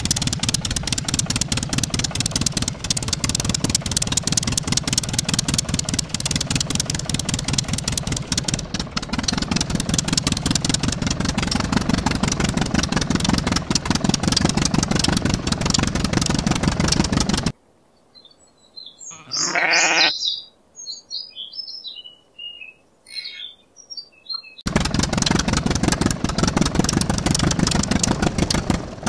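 Diesel tractor engine chugging with a fast, even beat; it cuts off after about seventeen seconds. In the pause a sheep bleats once and a few bird chirps follow, then the engine starts chugging again near the end.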